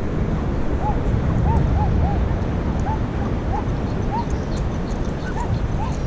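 Wind buffeting the microphone with a steady low rumble. Over it come faint, short high whines, repeated irregularly about every half second.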